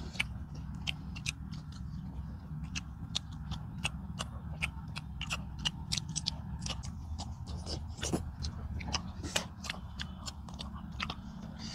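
People eating rice with fried fish and curry by hand at close range: irregular wet chewing, smacking and crisp biting clicks, over a steady low hum.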